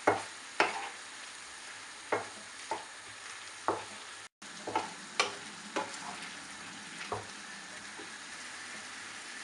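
Marinated chicken sizzling in hot oil in a pan while it is stirred and mixed, the utensil knocking and scraping against the pan about once a second. The sound cuts out for an instant about halfway.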